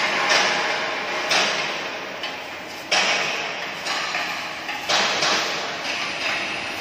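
Arc welding on steel honeycomb beams: a steady crackling hiss, with a sharp metallic knock every second or two that rings away.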